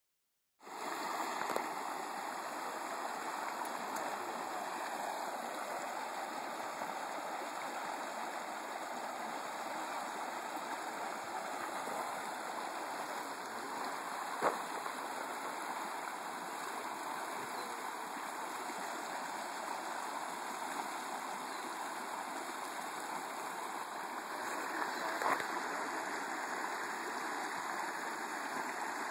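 Shallow water rushing and gurgling steadily over a line of rocks where a lake spills out into a stream, with a couple of brief knocks partway through.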